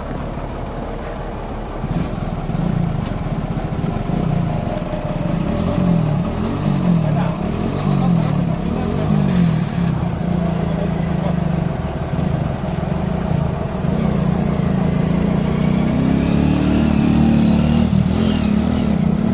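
Motorcycle engine revved up and down several times, its pitch climbing again near the end as it pulls away, over the running diesel engine of a Tata Hitachi EX200LC crawler excavator.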